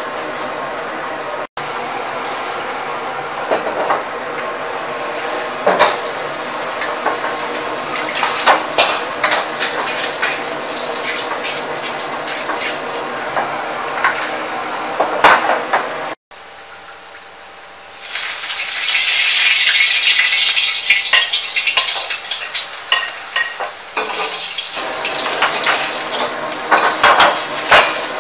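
Food sizzling and frying in a wok on a commercial gas wok range, with the metal wok ladle repeatedly scraping and clanking against the pan. Well past the middle, the sizzling suddenly becomes much louder and hissier for several seconds, then eases back.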